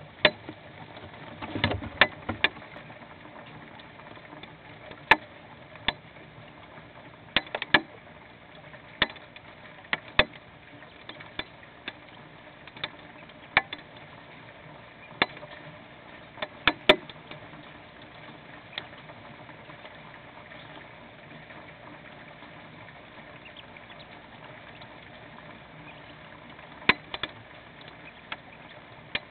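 Hailstones striking a nest box in a storm: sharp, irregular knocks, sometimes in quick pairs and sometimes a few seconds apart, over a faint steady hiss. The knocks thin out for several seconds in the later part, then a few more come near the end.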